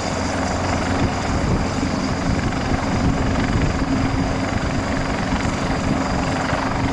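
Rescue helicopter hovering, its rotor beating steadily under a faint high whine.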